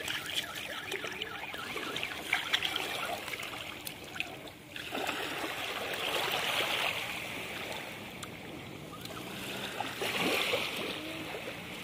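Shallow surf washing in over wet sand at the water's edge, a rushing hiss that swells about five seconds in and again about ten seconds in as each thin wave runs up.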